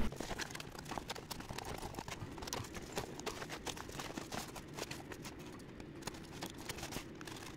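Quiet, irregular clicks and taps of a cardboard shipping box being handled, with its cut plastic packing strapping being pulled away.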